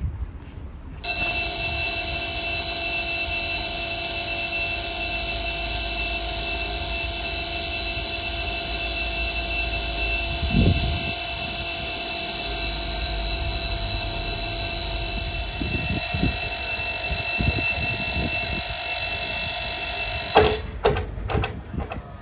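Level crossing warning bell ringing steadily, starting about a second in and cutting off suddenly near the end.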